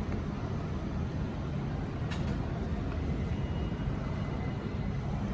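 Steady low background rumble, with a faint click about two seconds in.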